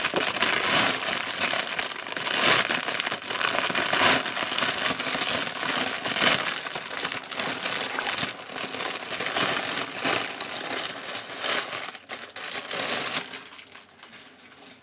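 Plastic packaging crinkling and rustling as it is handled and pulled open around a T-shirt, with many short crackles; it dies away about a second before the end.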